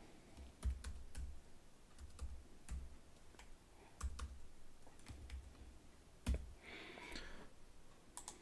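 Computer keyboard being typed on: slow, irregular single keystroke clicks with soft thuds under them.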